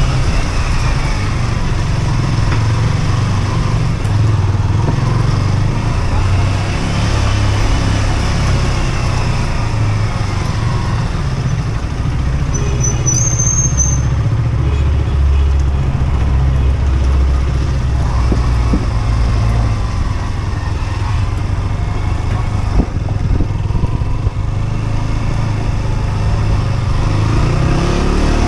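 Husqvarna Svartpilen 125's single-cylinder engine running under way, its pitch rising and falling with throttle and gear changes over a heavy low rumble. There is a brief high-pitched chirp about halfway through.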